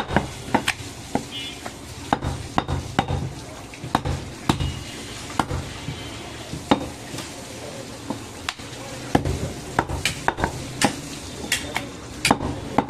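A butcher's large knife slicing goat meat and knocking and scraping against a wooden log chopping block, making irregular sharp clicks and taps.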